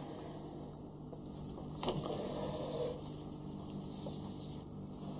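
Faint handling sounds: a plastic-gloved hand moving a paper instruction sheet and plastic kit parts on a cloth-covered table, with one light click about two seconds in, over a low steady hum.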